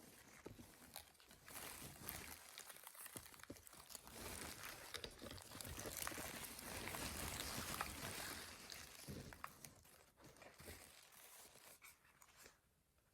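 Crinkling and crunching with many small clicks, as of crinkly material being handled. It is loudest in the middle and stops shortly before the end.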